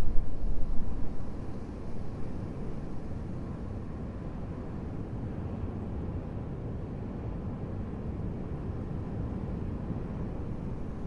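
Steady low rumbling noise with no distinct events, swelling louder over the first two seconds and then settling to an even level.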